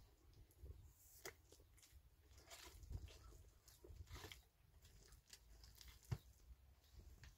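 Near silence with faint, scattered clicks and rustles; one slightly sharper click about six seconds in.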